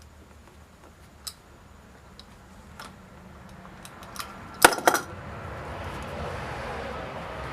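Utility knife and 14/2 cable being handled as the outer jacket is cut and stripped: scattered small clicks, a cluster of sharp clicks a little past halfway, then a steady scraping rustle.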